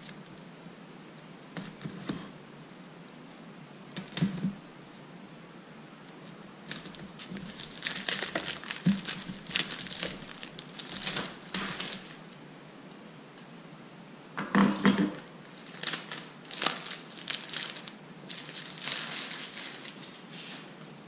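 Plastic shrink wrap crinkling and crumpling as it is slit with a utility knife and peeled off a cardboard product box. A few sharp clicks come in the first few seconds, then two long stretches of crackling.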